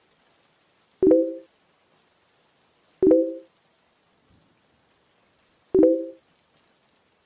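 Three short, low electronic chimes, each opening with a sharp click and a brief chord that dies away within half a second, about one, three and almost six seconds in. They work as a sound effect marking each new line of text as it appears.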